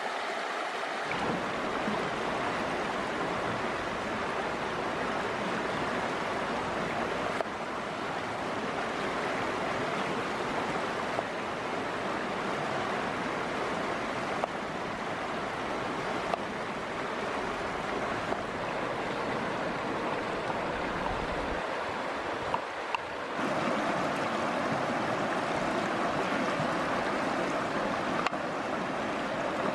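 A fast, shallow stream rushing over rocks: a steady wash of water noise. A few short sharp knocks of a knife striking a wooden cutting board sound now and then over it.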